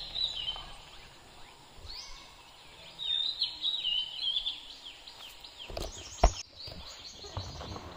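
Wild birds chirping in quick short calls, in clusters near the start, from about three to five seconds in, and again near the end. A single sharp knock about six seconds in is the loudest sound.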